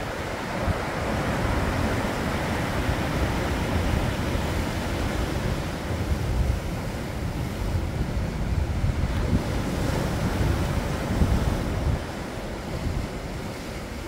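Sea waves breaking and washing over a rocky shore, a continuous rushing surf, with wind rumbling on the microphone. It swells about a second in and eases off near the end.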